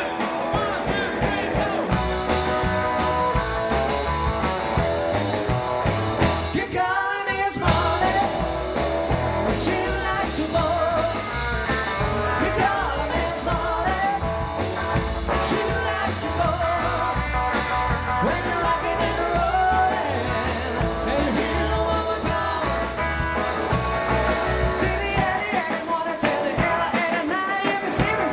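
Live rockabilly trio playing: upright double bass, drum kit and hollow-body electric guitar, with a man singing lead. About seven seconds in the band stops briefly under a single held, wavering note, then comes back in.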